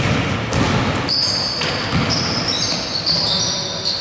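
A basketball being dribbled hard on a wooden gym floor during a fast break, a run of bounces in an echoing hall. Several short, high-pitched squeaks from sneakers on the floor are mixed in.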